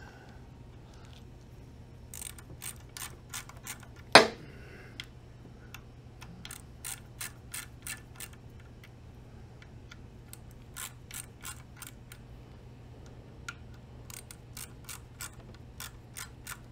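Hand ratchet with a 5 mm socket clicking in short runs of quick clicks with pauses between, as jacking screws are turned in slowly and evenly to press a magnesium oil filter housing cover off its housing. There is one louder knock about four seconds in.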